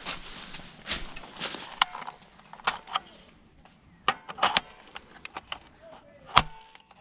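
Rustling followed by about a dozen irregular sharp clicks and snaps, the loudest a little before the end.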